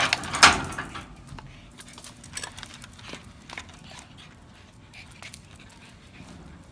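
Small dog heading out on a leash: a loud scraping rustle about half a second in, then light scattered clicks and shuffles of paws and footsteps on hard ground.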